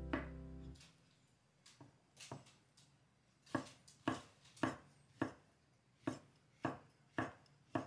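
Kitchen knife slicing shiitake mushrooms on a wooden cutting board, each cut ending in a sharp knock of the blade on the board. A few light cuts come first, then an even run of louder ones, about two a second.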